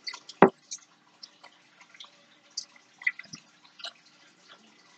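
Light, scattered clicks and taps from hands working thread around a paper clip with pliers on a tabletop, with one sharper click about half a second in.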